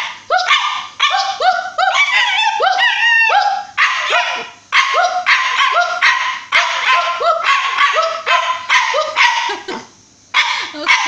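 A woman imitating a dog with a quick run of barks, mixed with a dog's own barks and yips in reply. There are brief pauses about four seconds in and near the end.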